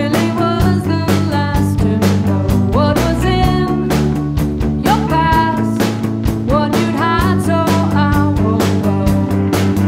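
Rock band playing live: electric guitar and keyboard over a steady beat, with a woman singing lead.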